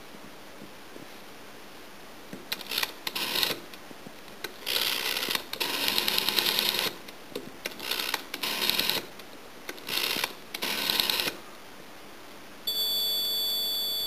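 A vintage telephone rotary dial, turned and let spin back several times: bursts of whirring and fast clicking, each a second or two long. About a second before the end, an electronic alarm buzzer starts with a steady high tone.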